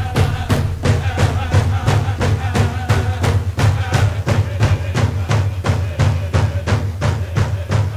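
Drum song for a circle dance: frame drums beat a steady fast rhythm, about four beats a second, with a group of voices singing over them that fades about halfway through.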